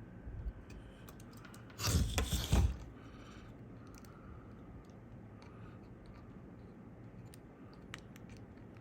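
Bench handling noise: a loud burst of close knocks and rustling about two seconds in, then scattered faint clicks of small tools over the steady background noise of an air-conditioning unit.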